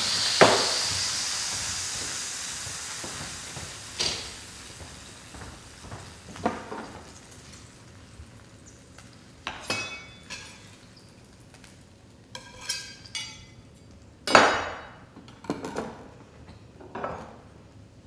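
Juices in a hot glass baking dish of freshly roasted pork tenderloin sizzling, dying away over the first few seconds. Then scattered clinks and knocks of a fork and the glass dish as the meat is moved onto a wooden cutting board. The sharpest knock comes about three-quarters through.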